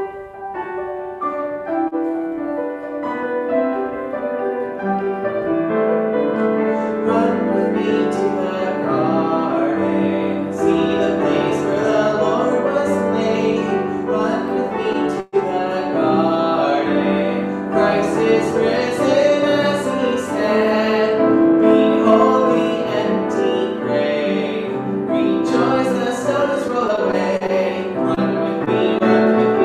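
Upright piano playing a hymn, starting abruptly and carrying on steadily, with a momentary dropout in the sound about halfway through.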